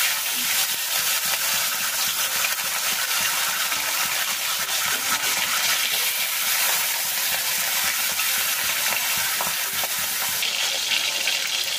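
Rohu fish steaks sizzling steadily as they fry in hot mustard oil in a wok.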